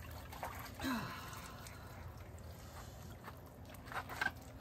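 A person climbing out of a cold-plunge tub, with faint splashing and dripping water, a short breathy vocal sound about a second in, and two sharp taps near the end.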